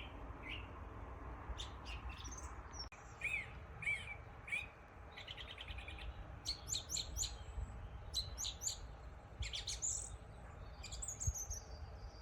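Small songbirds chirping and singing: short high chirps, a rapid trill about five seconds in, and several thin whistles, over a faint low rumble of background noise.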